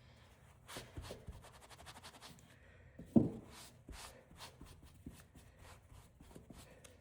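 A rag rubbing over a Case Medium Stockman pocketknife as the oil is wiped off it: faint scuffing with many small clicks of handling, and one brief louder sound about three seconds in.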